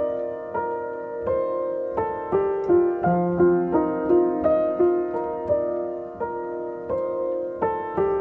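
A 1930s Steck upright piano playing a soft, even run of notes, about two a second, each ringing and dying away. The recording is time-corrected: its notes have been pulled onto an eighth-note grid with stretch markers.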